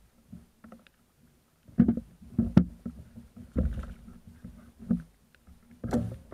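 A tope thrashing on a kayak: a run of irregular thumps and knocks against the hull with splashing, starting about two seconds in.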